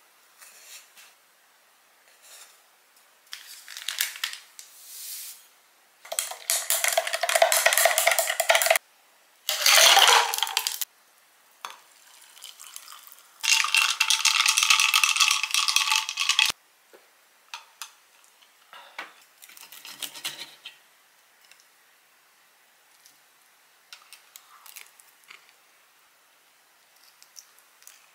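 A metal spoon stirring a drink in a glass, clinking rapidly against the sides in several bursts, with a ringing glass tone in the longest one. Scattered lighter clinks of utensils and plates follow.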